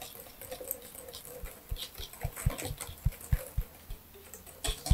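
Wire balloon whisk beating a thick custard-like cream (egg yolk, sugar, labneh and cream) by hand in a glass bowl: irregular soft knocks and clicks of the wires against the glass, several a second.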